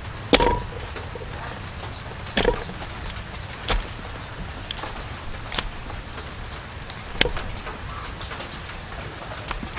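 Chopped chicken gizzards being dropped into a stainless steel bowl: several separate knocks a second or two apart, the first making the metal bowl ring briefly.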